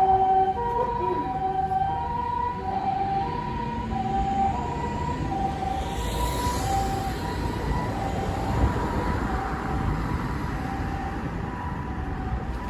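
Japanese ambulance's electronic two-tone siren, switching steadily between a higher and a lower tone about every two-thirds of a second, over the rumble of road traffic. Near the middle, a swell of passing-vehicle noise rises over the siren.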